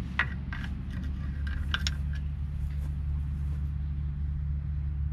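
A few light metallic clicks of an adjustable wrench on the transmission cooler line fittings, in the first two seconds. Under them runs a steady low hum.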